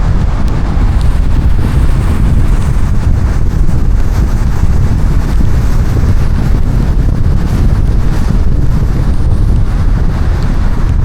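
A car driving through heavy rain: a steady, loud low rumble of road and rain noise, with wind buffeting the microphone.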